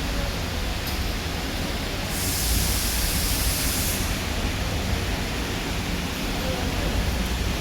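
Diesel generator set running steadily, a low rumble under an even hiss, with a brief burst of sharper high hiss about two seconds in that lasts around two seconds.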